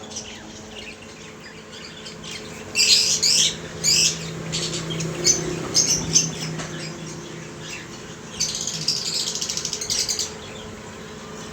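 Ringneck parakeets squawking in short, harsh bursts, followed by a rapid pulsing chatter about eight seconds in.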